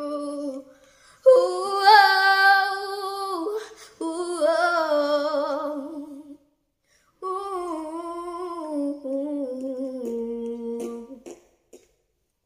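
A child's solo voice singing a slow, wordless melody without accompaniment. It moves in several phrases of long held notes, with short breaks between them.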